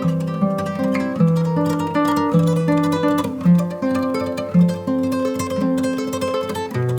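Background music: acoustic guitar played with picked and strummed notes in a steady, flowing melody.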